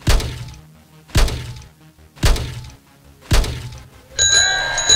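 Sound effects of an animated channel intro: four heavy thuds about a second apart, each with low musical notes under it, then a bright ringing chime near the end.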